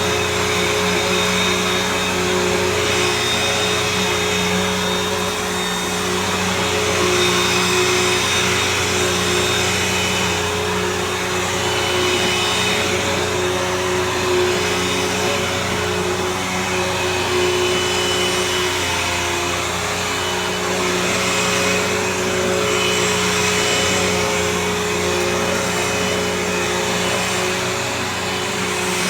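Bissell CleanView Helix Select upright bagless vacuum running steadily on carpet tiles: a constant motor whine and airflow rush with a steady hum.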